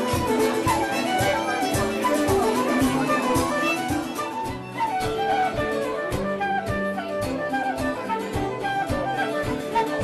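Irish traditional music played live, a fiddle carrying a quick melody over a steady beat.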